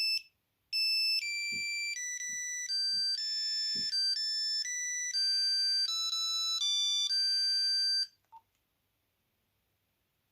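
Nokia 8210 playing a monophonic ringtone: a quick melody of single beeping notes, one at a time, with a short break near the start, that stops about eight seconds in. A few faint low knocks sound under it.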